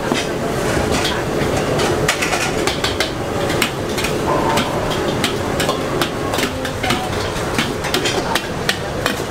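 Metal ladle clanking and scraping against a steel wok in quick, irregular strokes while stir-frying, over a steady hiss of frying.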